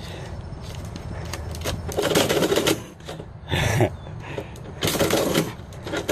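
A metal door mail slot clacking and envelopes rustling as mail is pushed in through the flap and shoved back out from inside by a cat. There are scattered clicks and three short bursts of clatter.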